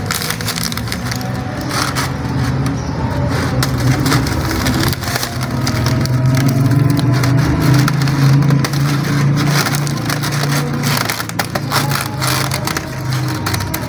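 Tin snips cutting through a roll of hexagonal wire mesh: a string of irregular sharp metallic snips and crunches. A steady low hum runs underneath.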